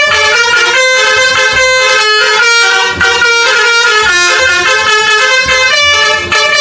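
Multi-tone 'telolet' bus horn playing a melody: sustained horn notes that change pitch every few tenths of a second. Short low thumps recur beneath it.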